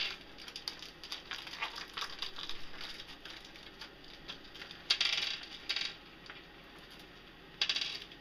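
Plastic hardware packet crinkling and being handled, with small metal hex bolts clicking as they spill onto a desk panel. Short louder bursts of rustling come about five seconds in and again near the end.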